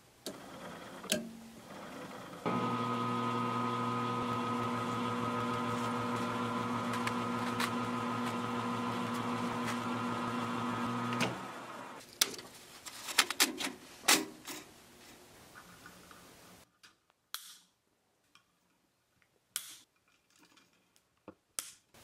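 Metal lathe running steadily at one speed, a hum with a whine, while steel wire is wound around a rod in its chuck to make a coil spring. It starts about two seconds in and stops after about nine seconds, followed by light clicks and taps of metal parts being handled.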